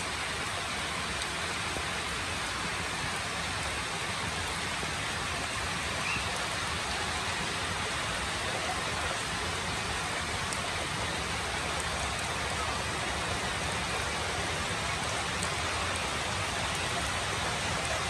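Steady rain falling, an even hiss with a few faint scattered drop ticks.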